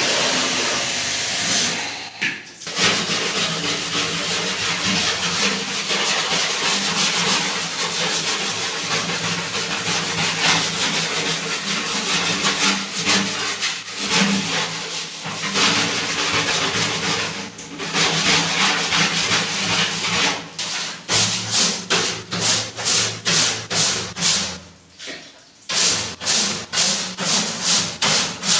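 Cleaning of an air-conditioner outdoor unit: a steady hissing noise over a low hum, then, from about twenty seconds in, quick rhythmic rubbing strokes, about two a second, with one short pause.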